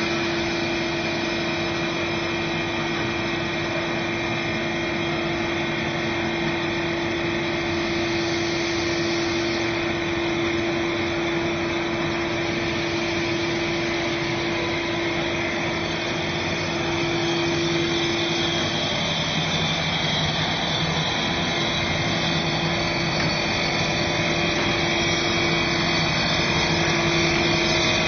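Fibre cement board cutting machine running: a steady mechanical drone and whine. Its hum shifts lower about two-thirds of the way through.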